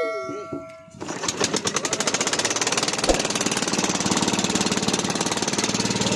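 A bangka's small boat engine starts about a second in and runs with a fast, rough knocking beat, settling into a steady note. A metallic ringing fades out at the very start, and there is one thump about three seconds in.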